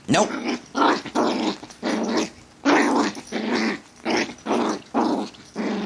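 Malshi puppy growling playfully in short, rough bursts about twice a second while attacking feet.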